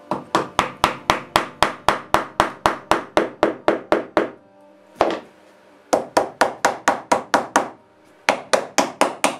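Rapid, evenly spaced taps on wood, about four a second, in three runs with short pauses: the glued box joints of a wooden box being knocked together during glue-up. Quiet background music runs underneath.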